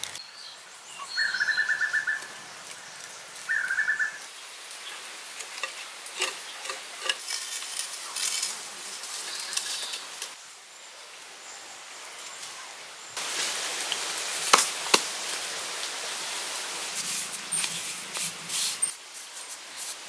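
Hands working wet cement and bamboo: scattered light clicks and knocks, then a long rough scraping with a few sharp clicks as the wet cement is smoothed by hand. A bird trills twice, briefly and loudly, in the first few seconds.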